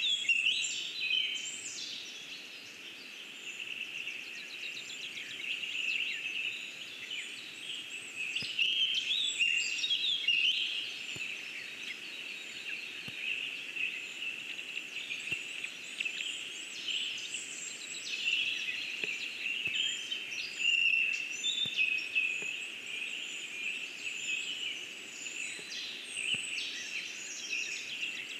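Several songbirds singing at once: a steady chorus of overlapping high songs, chirps and rapid trills.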